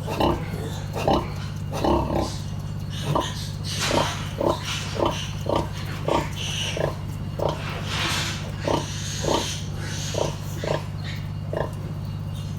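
Pig grunting in a steady rhythm, short grunts about twice a second, over a steady low hum.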